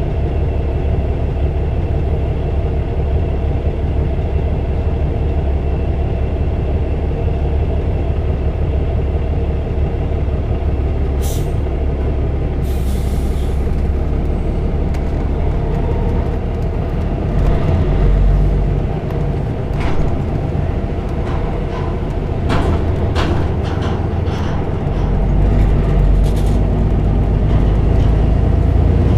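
Semi truck's diesel engine running, heard from inside the cab, with two short hisses of air about 11 and 13 seconds in as the brakes are released. From about halfway the engine pulls louder as the truck drives off the ferry, with a series of knocks and rattles from crossing the ramp.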